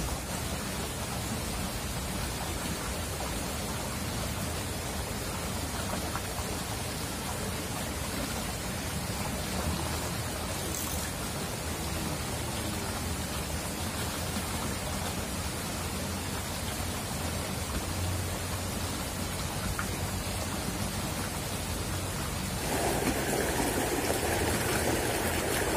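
Shallow stream running over stones: a steady rushing of water that grows louder near the end.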